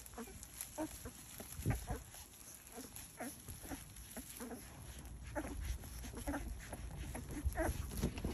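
Short, scattered animal squeaks and calls, sometimes several a second, over a low rumble.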